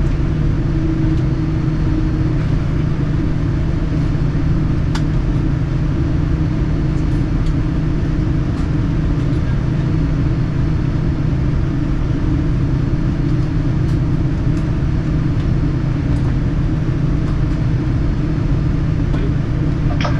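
Steady cabin noise inside a Boeing 787-9 moving slowly on the ground: a constant low hum with an even rush of air, and a faint tick about five seconds in.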